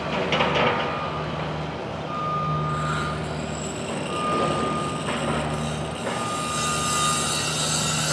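A heavy vehicle's reversing alarm beeping: one steady tone held about a second, repeating roughly every two seconds, over the low hum of its running engine.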